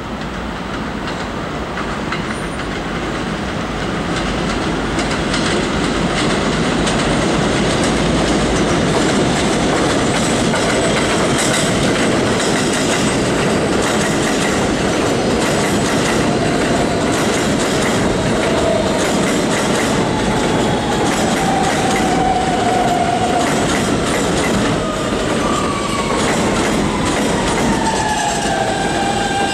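Kawasaki R160B subway train running into an elevated station: wheels rumbling and clacking over the rails, growing louder over the first several seconds and then holding steady. From about two-thirds of the way through, the electric motors' whine falls in pitch as the train slows for its stop.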